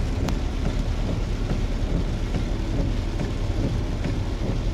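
Heavy rain on the roof and windshield of a moving car, heard inside the cabin, over steady low road noise.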